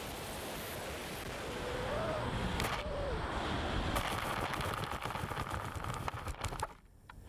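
Wind rush on a small fixed-wing RC plane's onboard camera microphone, with crackling scrapes as the plane slides across grass on landing. The sound cuts off suddenly near the end.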